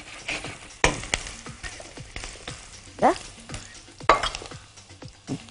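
Chopped onion frying in a stainless steel pan, sizzling as a wooden spoon stirs it, with scattered clicks of the spoon against the pan.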